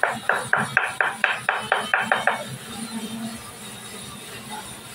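About ten quick hammer blows on a wooden workpiece, about four a second, stopping about two and a half seconds in.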